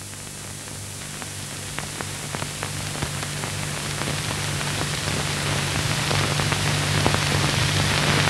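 Hiss and a steady mains hum from an old film soundtrack, with scattered crackles; the hiss grows slowly louder.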